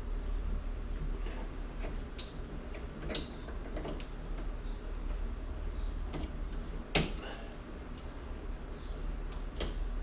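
Sharp plastic clicks and taps as a car grille is handled and pressed onto its clip brackets: about six separate clicks, the loudest about seven seconds in, over a steady low hum.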